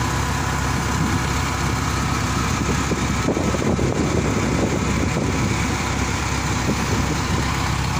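Mobile crane's diesel engine running steadily at idle, a low even drone with a steady hiss over it.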